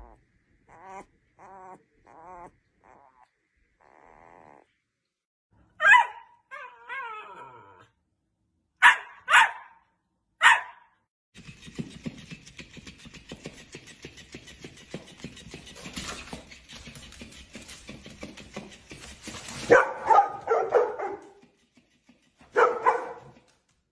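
A newborn Labrador puppy squeaking and crying in short wavering squeaks, then several louder sharp cries. After that a flopping-fish dog toy buzzes and patters on a wooden floor, and a Labrador barks at it in two bursts near the end.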